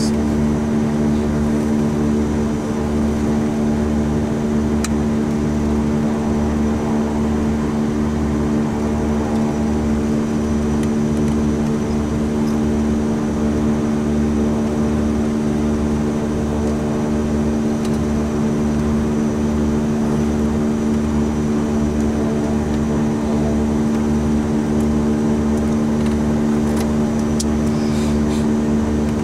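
Beechcraft King Air C90's twin PT6A turboprop engines running at idle, heard from inside the cockpit. It is a steady hum with a slow, regular throb underneath.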